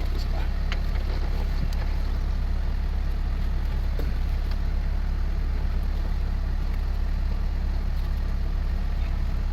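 An engine running steadily, a constant low rumble, with a few faint clicks over it.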